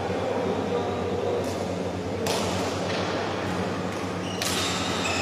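Badminton doubles play in a sports hall over a steady low hum. A sudden sharp sound of play comes about two seconds in and another near the end, each leaving a lingering hall echo.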